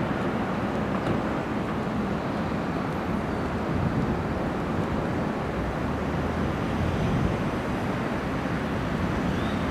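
Steady jet noise from an Airbus A321-231's two IAE V2500 turbofans at approach power, heard from a distance on final approach.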